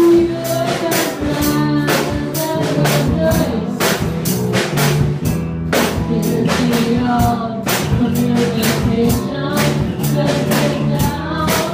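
A small band playing live: a drum kit keeping a steady beat under acoustic guitar and a girl singing through a microphone and amplifier.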